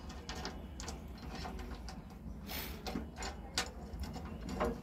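Light metal clicks and small scrapes as a bolt is turned by hand in the slot of a steel mounting bracket held against a machine's sheet-metal body, with a brief louder scrape about halfway through.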